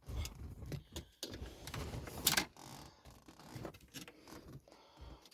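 Rustling, scraping and clicking of car dashboard plastic trim being worked by hand around the stereo, with one sharper click a little over two seconds in.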